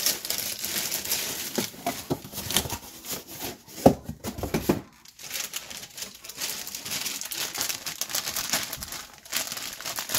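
Plastic crinkling and rustling as packaging is handled, likely the wrapping of the replacement refrigerator control board, with a louder handling knock about four seconds in.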